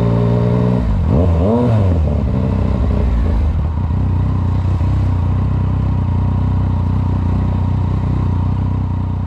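Yamaha MT-09's three-cylinder engine idling, blipped twice about a second in so the revs rise and fall, then settling back to a steady idle.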